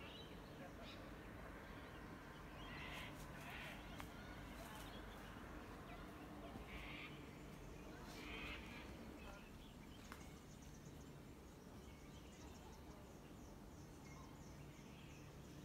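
Faint bird calls in bushland: a few short calls about three seconds in and again around seven and eight seconds, with a fast, high, repeated chirping from about ten seconds on, over a faint steady low hum.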